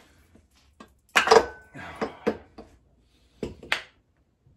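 Hammer blows on the center iron of a partly dismantled Mazda 12A rotary engine, working against a dowel that binds and lifts with the iron. There are about five metallic knocks; the first, about a second in, is the loudest and rings briefly.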